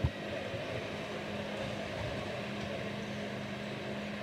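Steady low hum over even background noise, with one short thump at the very start.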